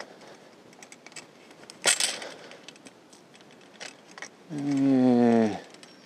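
Pole pruner working in an apple tree: a sharp snap about two seconds in and a few lighter clicks of the cutting head. Near the end a man hums one low note for about a second, falling slightly in pitch.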